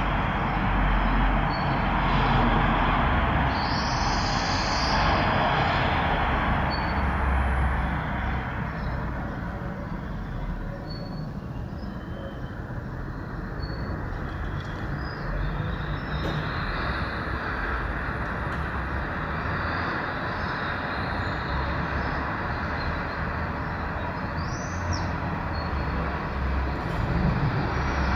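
Residential street ambience with steady traffic noise. A vehicle passes in the first several seconds and fades by about ten seconds in, and there are brief high squeals about four seconds in and again near the end.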